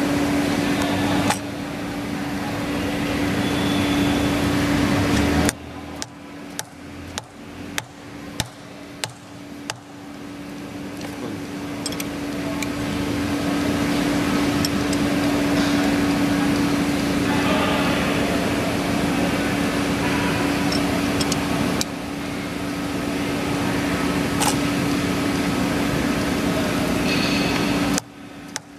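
A steady machine hum with a low tone, which cuts off suddenly about five seconds in and comes back a few seconds later. In the gap comes a series of sharp taps, about two a second: a soft-faced mallet striking the steel body of a hydraulic lathe chuck to true it against a dial indicator.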